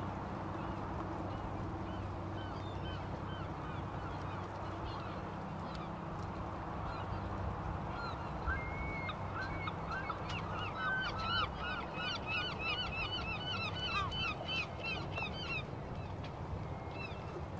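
A flock of birds calling, many short pitched calls in quick succession that grow thick in the second half, over a steady low hum.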